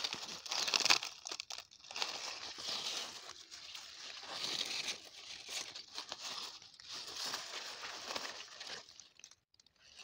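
Muskmelon vine leaves rustling and crinkling in uneven bursts as a hand pushes through them and parts the foliage, dying away near the end.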